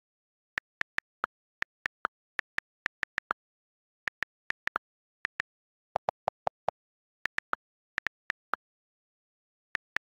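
iPad on-screen keyboard key clicks, about thirty short, crisp ticks at an uneven typing pace, picked up straight from the system audio. About six seconds in, a quick run of about seven lower, duller clicks is the delete key's sound as a typo is erased.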